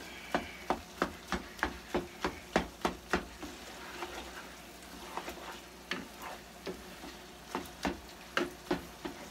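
Ground beef frying in a skillet, sizzling, while a utensil stirs and breaks it up, knocking against the pan about three times a second. The knocking pauses for a couple of seconds midway, leaving the sizzle.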